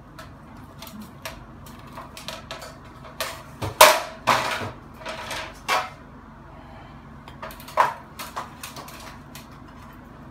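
Scattered knocks and clinks of a stepladder being climbed and tools being handled, the loudest about four seconds in and another near eight seconds.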